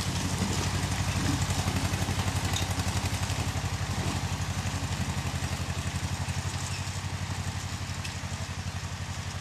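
Engine idling steadily with an even, rapid pulse.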